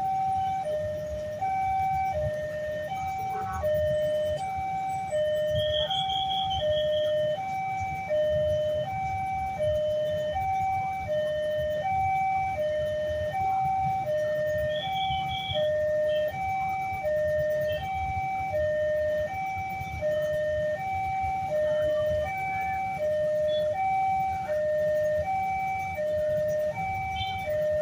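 Electronic level-crossing warning siren from a horn loudspeaker, alternating evenly between two steady tones, high and low, about three-quarters of a second each. It is sounding while the crossing gates are closed for an approaching train.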